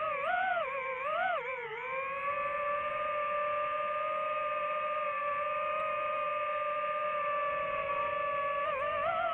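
DJI FPV drone's motors and propellers whining at a steady pitch while it hovers. The pitch wavers in the first two seconds, then rises near the end as the drone speeds up and starts to climb.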